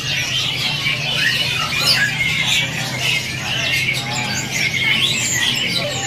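Many caged songbirds chirping and calling at once in a dense, unbroken chorus of short, quick notes, over a steady low hum.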